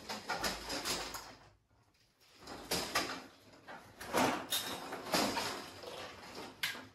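Scattered scuffs, knocks and rustles of handling: footsteps and a plastic 3D-printed blaster with its hose-fed backpack dart magazine being picked up and readied. About a second and a half in there is a brief gap of dead silence.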